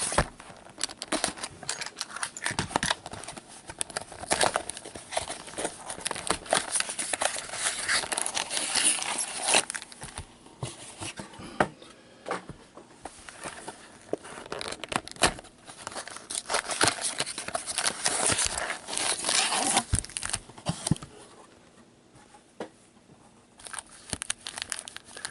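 Trading card boxes and packs being opened by hand: the plastic wrap and foil crinkling and tearing, with cardboard flaps clicking and rustling. The handling dies down for a couple of seconds near the end.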